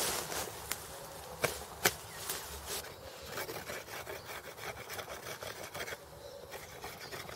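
A stone flake cutting a green wooden stick. Several sharp knocks come roughly every half second over the first three seconds, then a denser, quieter scratchy rasping as the flake scrapes and saws across the wood.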